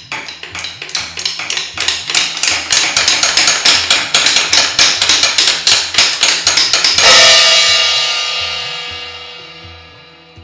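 Rapid, steady percussive strikes that grow louder, a musical stand-in for chiselling at a wall, build to a loud cymbal crash about seven seconds in that rings and slowly fades, over a soft bass line.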